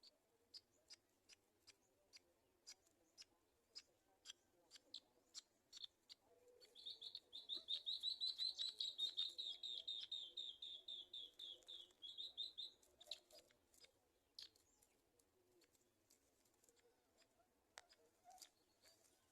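Black-winged kites calling at the nest: sharp high ticks about twice a second, then a rapid run of high chittering notes lasting about six seconds, then a few scattered ticks.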